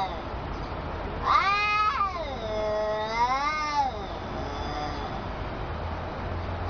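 A cat caterwauling in a face-off with another cat: one long, wavering yowl that starts with a steep rise about a second in, dips and swells again, and fades out past the middle. The sound is an aggressive, territorial warning between the two cats.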